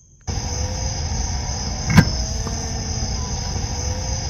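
Slinger Bag tennis ball machine running on a new replacement battery, with a low steady hum and a single sharp pop as it fires a ball about two seconds in. Crickets chirp steadily in a high band throughout.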